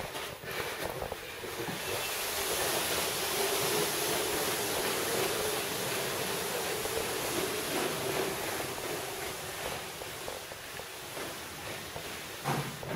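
A steady rushing, scraping noise that swells about two seconds in, holds for several seconds and eases off near the end, closing with a knock.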